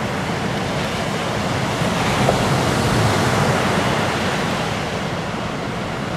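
Ocean surf breaking and washing toward the shore, a steady rush of white water.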